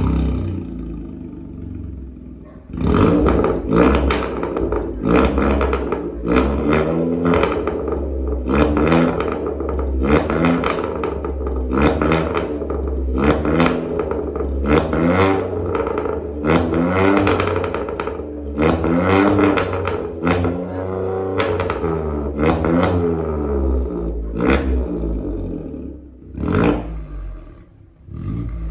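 Volkswagen Polo 1.0 naturally aspirated engine through a straight-pipe Varex valved exhaust, revved again and again in short blips that rise and fall in pitch about once a second over a low idle. The first blip comes as the engine catches at the very start, and the revs space out near the end.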